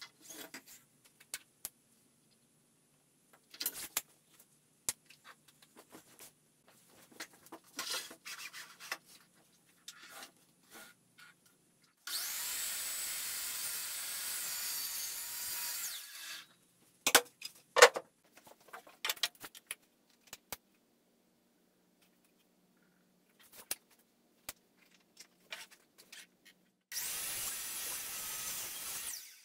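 DeWalt sliding compound miter saw crosscutting a plywood board twice: each cut is a steady run of about four seconds that stops suddenly, the second starting near the end. Between the cuts come scattered clicks and knocks of the board being handled, including one loud knock shortly after the first cut.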